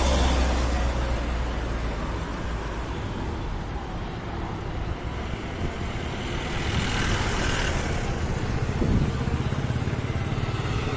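Highway traffic passing close by. A bus goes past with a low engine sound at the start. Around seven to eight seconds in, another vehicle swells past with tyre hiss, and engine sound carries on near the end.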